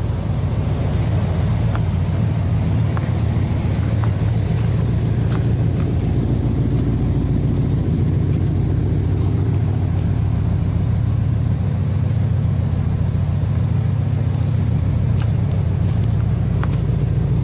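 Square-body Chevy pickup's 307 small-block V8, built with 350 heads, an RV cam and headers, idling steadily with an even low exhaust rumble.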